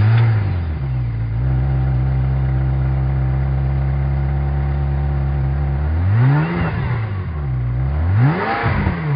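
Car engine just after starting with a push-button start: it flares up briefly, settles into a steady idle, then is revved twice near the end, the pitch rising and falling each time.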